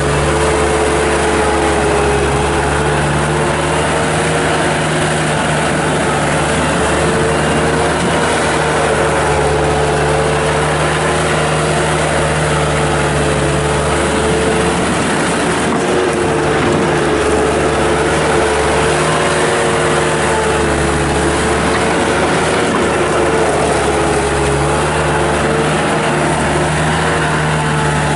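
Bobcat 863 skid steer loader's 73 hp turbo diesel engine running steadily while the machine is operated, with a brief dip in the sound about fifteen seconds in.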